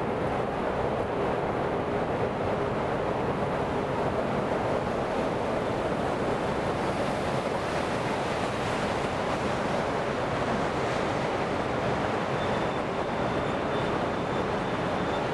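Steady rushing road noise of a vehicle driving through a road tunnel: tyre and engine noise with no breaks. A faint high tone joins in about three-quarters of the way through.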